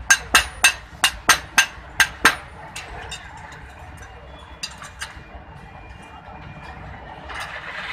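Sledgehammer blows on a hot iron knife blank held on an anvil, hand-forging a daw blade, with sharp metal-on-metal strikes about three a second. The strikes stop after about two seconds, and a couple of lighter clinks follow about five seconds in.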